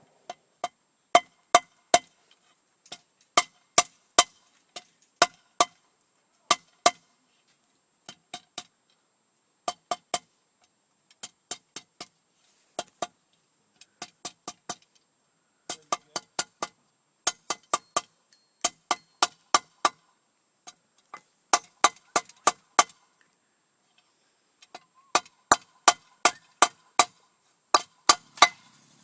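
Blacksmith's hammer striking steel on an anvil while forging the socket of a bodkin arrowhead. The blows come in short runs of two to five, about two or three a second, each with a bright metallic ring, and there are brief pauses between the runs.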